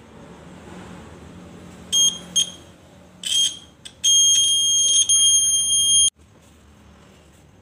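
Piezo buzzer of a homemade buzz-wire game sounding a shrill, high-pitched beep whenever the wire loop touches the bent wire and closes the circuit: a few short beeps about two and three seconds in, then one long beep of about two seconds that cuts off suddenly.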